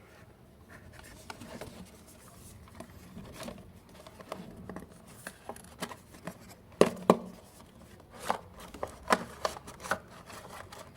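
Hands opening a small product box and handling its plastic-wrapped contents: quiet rubbing and rustling, then a run of sharp clicks and taps in the second half, the loudest two close together.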